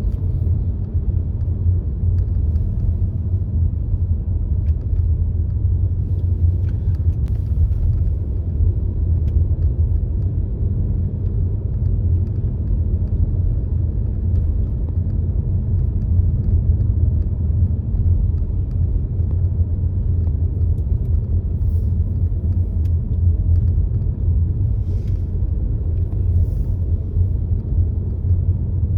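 Steady low rumble of a car being driven: engine and road noise, without change.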